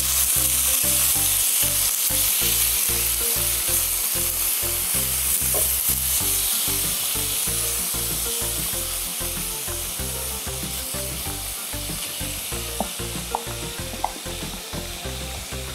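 Chicken breast pieces sizzling as they stir-fry in hot oil in a frying pan, turned with tongs. The sizzle slowly grows quieter.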